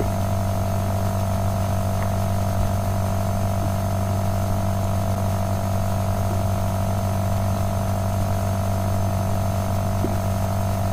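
Steady electrical mains hum with a faint high whine above it, picked up by the recording's microphone, unchanging throughout, with a couple of faint soft clicks.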